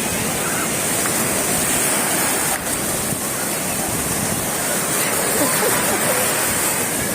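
Sea surf breaking and washing on a beach, a steady wash of noise, with faint distant voices of beachgoers.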